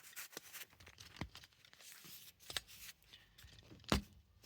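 Light handling noises at a workbench: scattered small clicks and rustles, with a sharper knock about four seconds in.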